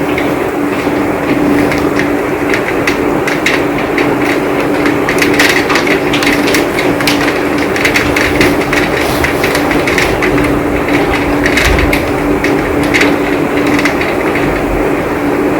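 Heavy rain falling steadily, with a dense patter of sharp individual drops striking close by, over a steady low hum.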